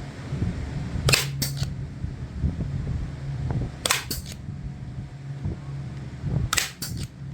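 Staple gun firing three times, about two and a half seconds apart, each a quick double snap, as staples are driven to hold a cover in place. A steady low hum runs underneath.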